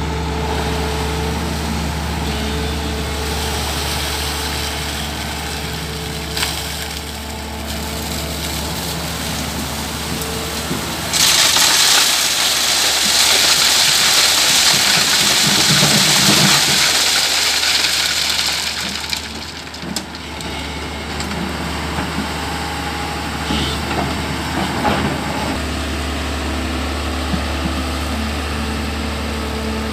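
LiuGong crawler excavator's diesel engine running steadily. About eleven seconds in, a bucketload of wet river stones and gravel pours onto a steel mesh screen, loudly, for about seven seconds, before the steady engine sound returns.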